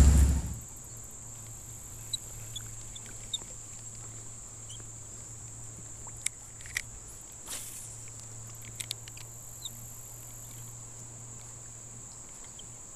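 Insects buzzing in one steady high note over a faint low hum, with a few soft clicks and taps scattered through. A loud rush of noise cuts off within the first second.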